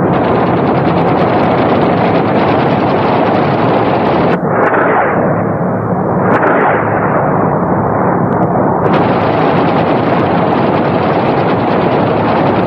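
Sustained heavy machine-gun fire, a dense unbroken rattle, laid over strafing footage. For a few seconds in the middle it goes duller, losing its top end.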